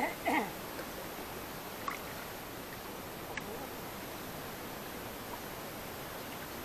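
Wooden dugout canoe being paddled on a river: a steady, even hiss of moving water, with a brief voice right at the start and a few faint clicks.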